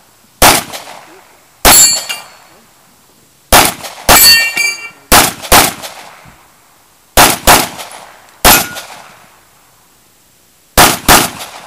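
About a dozen 9mm pistol shots from an H&K P30L, fired singly and in quick pairs with pauses of up to two seconds between groups. Several shots are followed by the ringing clang of hit steel targets.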